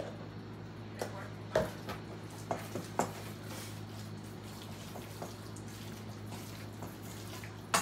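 Small spoon scooping mayonnaise from a jar and working it into chicken salad in a stainless steel bowl: scattered light clicks and scrapes of the spoon with soft wet sounds, over a steady low hum.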